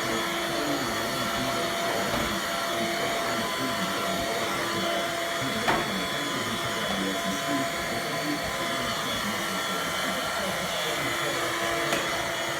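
Vacuum cleaner running steadily, with one sharp knock about halfway through.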